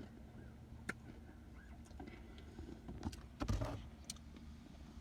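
Low steady rumble inside a car cabin, with a few small clicks and a brief louder rustle or scrape about three and a half seconds in.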